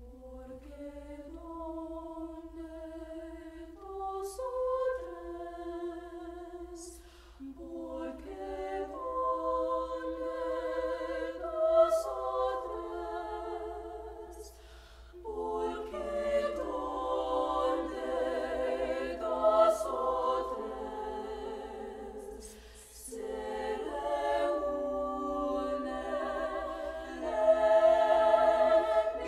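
High school girls' choir singing a cappella in sustained chords, phrase by phrase with brief breaks between, growing louder in the second half.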